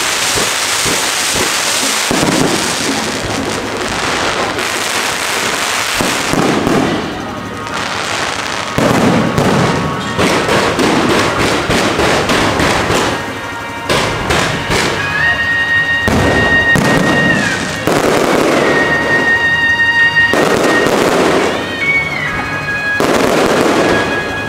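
Aerial fireworks show: dense crackling and repeated bursts of shells breaking overhead. In the second half several long high whistles hold steady and then dip in pitch.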